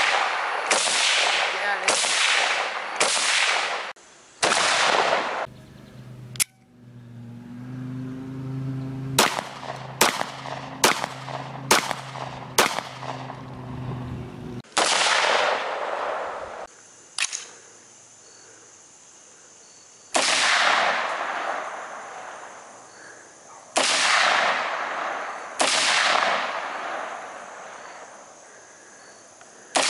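Gunshots from several firearms, each a sharp crack with a long echoing tail. First a few shots about a second apart, then seven quicker, shorter handgun shots over a steady low hum, then an AR-15-style semi-automatic rifle fired one shot at a time, every two to four seconds.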